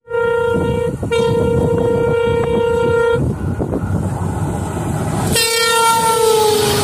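Diesel locomotive horn sounding over the loud, steady rumble of the running train: a short blast, then a long one lasting about two seconds. After a couple of seconds of running noise alone, another blast begins about five seconds in, its pitch sliding slightly lower.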